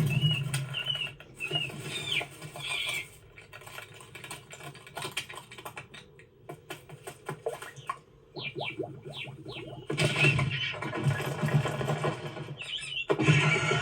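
Animated-film sound effects for a bird chasing bugs: short bird chirps and squawks with fluttering wings and rapid rattling. A quick run of falling chirps comes about eight seconds in, and louder stretches follow near ten seconds and near the end.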